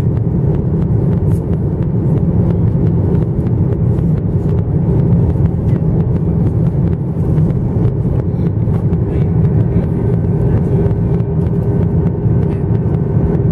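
Steady cabin noise inside a Boeing 737-900ER in flight: a deep, even rumble from the CFM56-7B engines and airflow past the fuselage, heard from a window seat behind the wing. A faint steady hum joins about nine seconds in.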